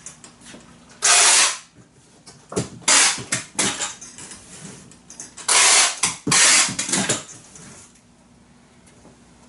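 Fabric-reinforced packing tape being pulled off the roll in harsh rips, four of about half a second each: one about a second in, one near three seconds, and two close together past the middle. Smaller handling clicks and rustles come between them.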